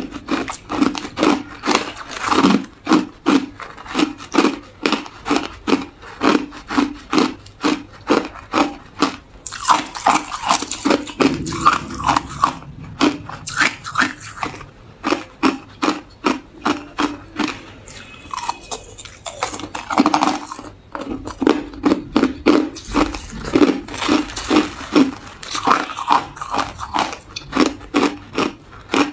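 Hard ice chunks being bitten and chewed: a steady run of sharp, brittle crunches, about two to three a second, with a short lull about two-thirds of the way through.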